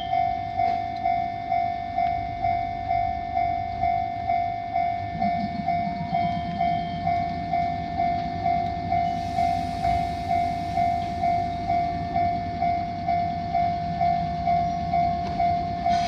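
Japanese level-crossing warning bell ringing steadily, about two strikes a second. From about five seconds in, the low hum of a Kotoden 1080-series electric train moving off joins it.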